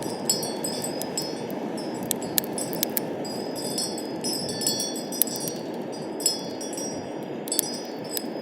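Metal chimes ringing, struck at irregular moments, over a steady rush of wind.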